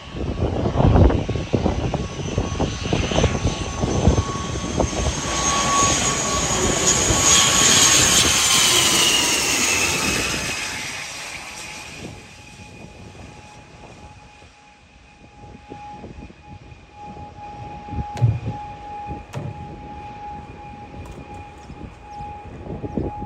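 Jet airliner passing low overhead, its engine noise building to a peak and then fading away. The turbine whine drops in pitch as the plane goes by.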